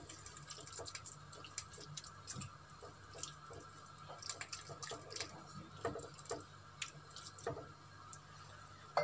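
Mussels in chermoula sauce sizzling in a hot clay tajine, with scattered soft pops and clicks at irregular intervals, while a wooden spatula stirs and spreads them against the clay.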